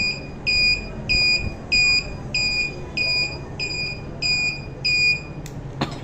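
Honda CD70 turn-signal buzzer beeping in time with the flashing right-hand indicator, a high beep about one and a half times a second. The beeping stops about five seconds in, followed by two sharp clicks.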